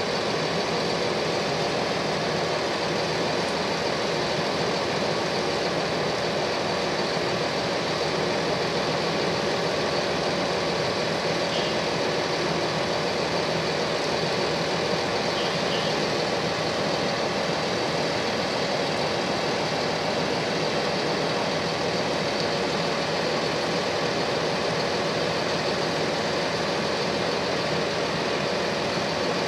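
An engine running steadily at one constant speed: an even, unbroken drone with a steady hum, with no change in pitch or level.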